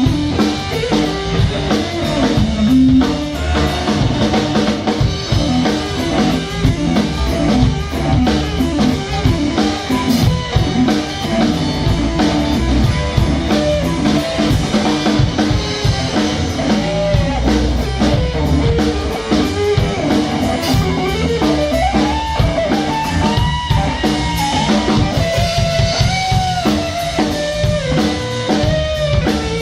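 Rock music played on guitar and drum kit. Over the second half a melody line glides up and down above the accompaniment.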